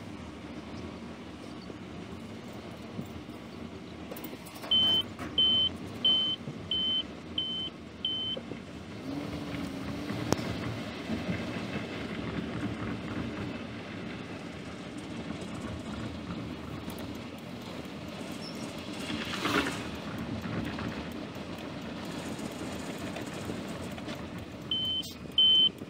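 Steady road and engine rumble heard from inside a moving car, with two runs of high electronic beeps, evenly spaced at about one and a half a second: six beeps about five seconds in and more near the end. A brief whoosh swells and fades about two-thirds of the way through.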